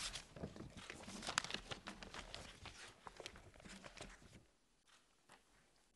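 Faint rustling and light knocks of papers being gathered up and handled at a lectern, stopping about four and a half seconds in.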